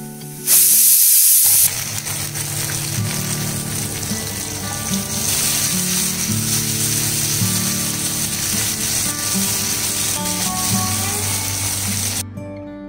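Food frying in hot oil in a pan: a sudden loud burst of sizzling about half a second in, then a steady sizzle. Background music plays under it, and the sizzle stops shortly before the end.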